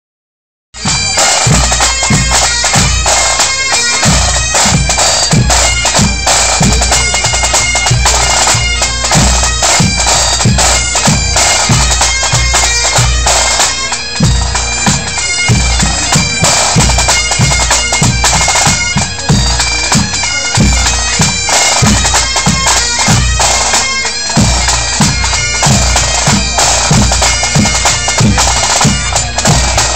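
Pipe band playing: Highland bagpipes sounding their steady drones under the chanter melody, with snare, tenor and bass drums beating along. The music starts abruptly just under a second in.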